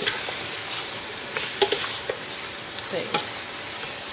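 Chopped chicken pieces sizzling in a pot with herbs and seasoning, stirred with a utensil that clicks against the pot a few times. The meat is cooking down so the seasoning cooks in.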